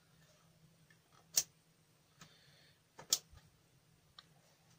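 Push-buttons of an RGK PR-3A laser level clicked a few times, two sharp clicks about a second and a half apart with fainter ticks between. The unit gives no response: the laser level is dead after being fed too high a voltage.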